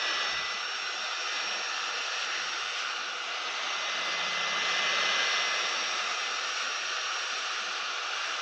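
Hot air rework station blowing a steady rush of hot air with a faint high whine, heating the phone to soften its adhesive.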